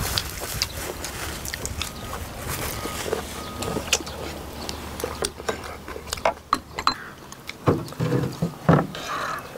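Close-up eating sounds: wet chewing of braised sea squirt, with many small clicks and pops, and metal tongs and chopsticks tapping and scraping on the serving plate. A few louder mouth sounds come near the end.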